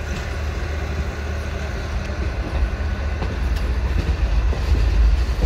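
Sealdah–Agartala Kanchanjunga Express running, heard from the open doorway of a coach: a steady low rumble with a few faint wheel clicks, growing louder near the end.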